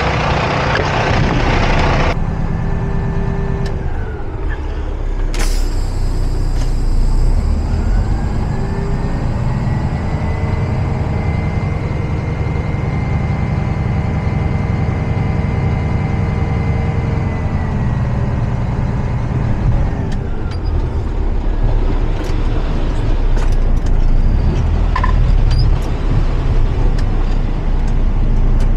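Semi truck's diesel engine running, heard from inside the cab, with a sharp clunk and a short air hiss about five seconds in. The engine then speeds up, holds a higher pitch for several seconds, and settles back down.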